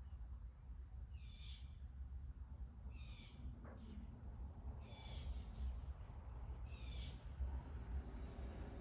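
A bird calling four times, each call short and evenly spaced about two seconds apart, over a steady low background rumble.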